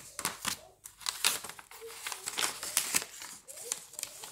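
Crinkling and rustling of a cut-open sealed sticker-kit packet as a stack of sticker sheets is slid out of it, in irregular crackles.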